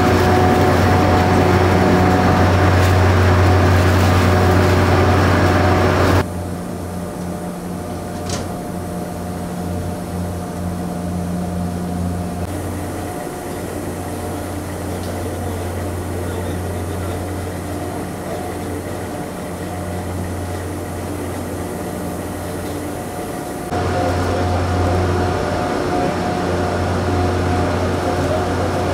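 Steady low hum of heavy machinery inside a thermal power plant, with a few steady tones over the drone. It drops in level about six seconds in and rises again near the end.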